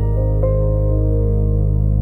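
Background music: slow, ambient new-age style keyboard music with sustained notes over a held bass.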